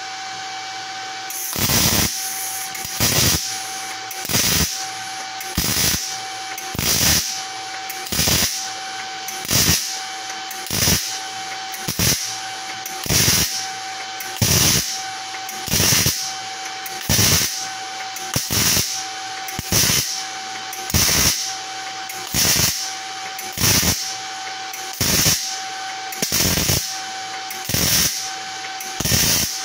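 MIG welder striking a quick row of short tack welds on thin steel plate, about twenty evenly spaced bursts of crackling arc, roughly one every 1.3 seconds, starting about a second and a half in. A steady whine runs underneath.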